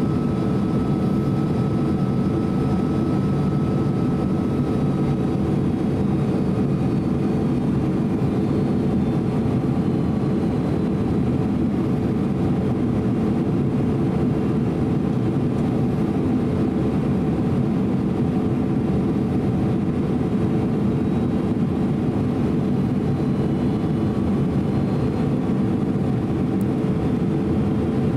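Steady in-cabin noise of a Boeing 767-300 airliner in flight: a low, even rumble of engines and rushing air, with a steady hum running through it. A faint higher tone fades out about five seconds in.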